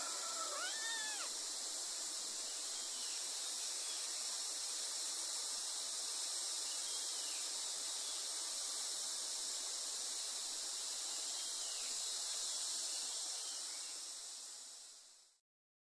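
Kitten meowing once clearly about half a second in, then a few faint meows spread through the rest, over a steady hiss; the sound fades out near the end.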